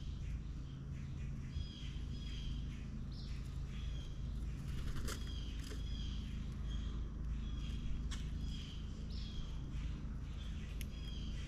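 Outdoor birdsong: one bird's short chirping calls repeat about once a second, over a steady low rumble. A few sharp clicks come through, the clearest about five seconds in.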